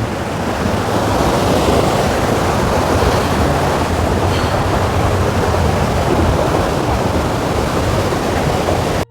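Steady rushing of a fast-flowing forest stream, with some wind noise on the microphone. It cuts off abruptly just before the end.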